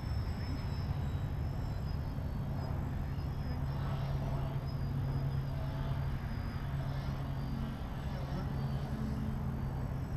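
Steady, fluttering low rumble of wind buffeting a camera's microphone, with the faint drone of a distant RC model aeroplane's motor and propeller above it.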